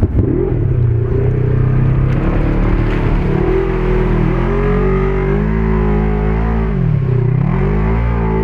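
Off-road vehicle engine running under load, its revs wavering, then dropping sharply and climbing back up near the end.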